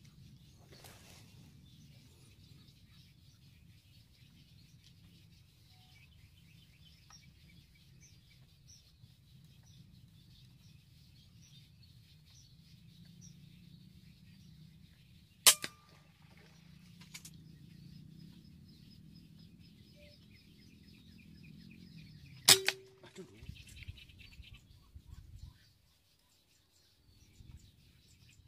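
Two rifle shots, most likely from an air rifle, each a single sharp crack, the second about seven seconds after the first. They sound over a steady chorus of insects.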